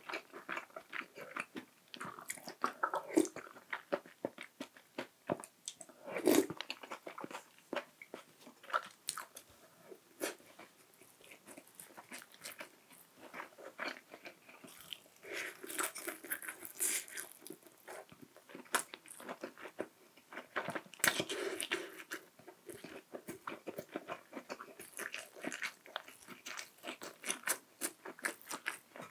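Close-miked eating sounds: a man biting and chewing mouthfuls of a dumpling hot pot meal, with many quick wet mouth clicks and smacks.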